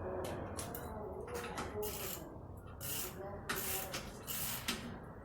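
A ratchet wrench clicking in short, uneven bursts, tightening the nut on a Honda Fit's newly installed rear wheel hub bearing before final torquing.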